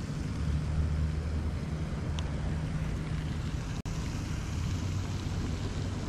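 A steady low mechanical hum over an even wash of outdoor noise, cutting out for an instant about four seconds in.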